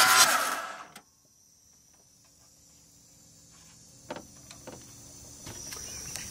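Ford 7.3L Powerstroke V8 diesel turning over on its starter with the glow plugs out and no injectors firing, puffing and chugging in an even rhythm; it is cut off about half a second in and the cranking dies away within a second. A few faint clicks and a faint steady high-pitched chirr follow.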